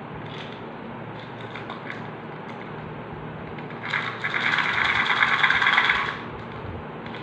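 A few light handling clicks, then about four seconds in a loud, dense crackling of plastic for about two seconds as a small round plastic candy container is twisted and worked open.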